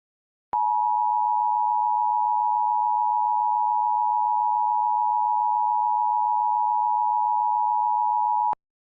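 Emergency Alert System attention signal: a steady two-note electronic tone, both notes sounding together, starting about half a second in and holding for about eight seconds before cutting off abruptly. It warns that an emergency broadcast message follows.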